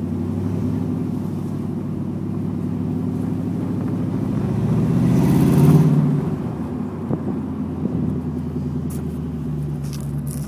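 1987 Mustang GT's 5.0 V8 heard from inside the cabin while driving: a steady drone that builds in a short burst of acceleration, peaking about six seconds in, then falls away as the throttle is lifted and settles back to an easy low-speed run.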